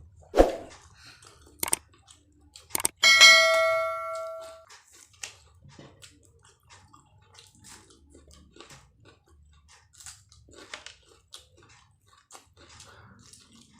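Eating at a table: a thump, a couple of sharp clicks, then a single bright ringing clink of tableware that dies away over about a second and a half, followed by faint chewing clicks.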